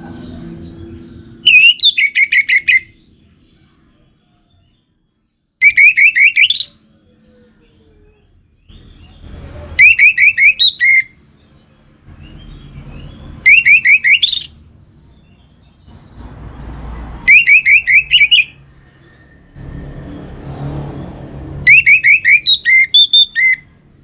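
Orange-headed thrush singing: six short phrases of quick, repeated notes, each about a second long, coming roughly every four seconds.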